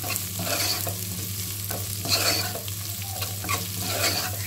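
Chopped vegetables being stir-fried in oil over a high flame: a metal spatula scrapes and tosses them in a nonstick pot about twice a second over a steady sizzle.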